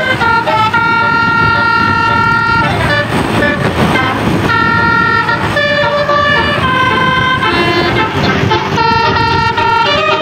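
Indonesian tour bus telolet horn playing a tune of held multi-tone notes, changing pitch every second or so, with a brief noisier gap about three seconds in.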